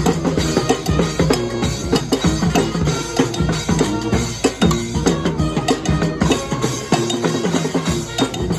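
Brass band playing live: horns play a repeating riff over a busy drum beat with bass drum and snare. The lowest bass drops out briefly near the end.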